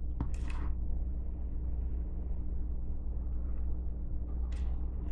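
Steady low electrical hum, with two brief faint handling noises from a headlamp being turned in the hands, one just after the start and one near the end.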